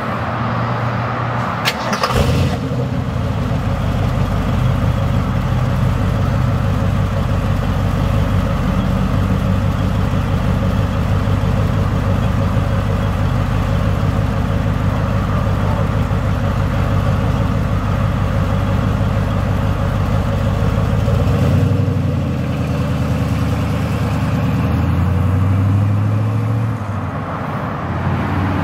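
1972 De Tomaso Pantera's 351 Cleveland V8 starting up, firing with a sharp crack about two seconds in, then idling steadily. It is revved briefly about twenty-two seconds in and again a few seconds later.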